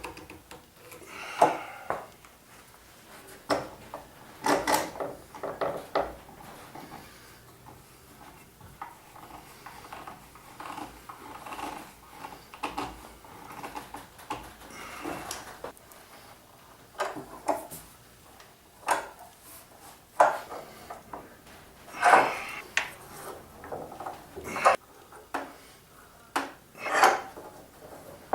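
Metal clamps being set on a wooden glue-up and tightened: irregular clanks, clicks and knocks of metal against metal and wood, some with a short metallic ring.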